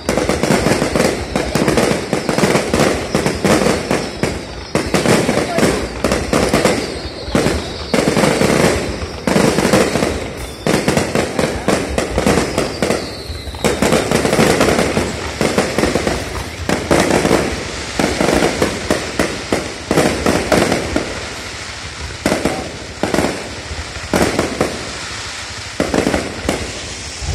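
Aerial fireworks going off in quick succession: a nearly unbroken run of bangs and crackles as shells launch and burst low overhead.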